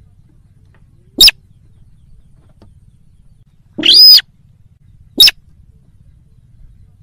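Slaty-breasted rail (sintar) calling: three sharp, high calls, a short one about a second in, a longer one in the middle, and another short one about a second after that.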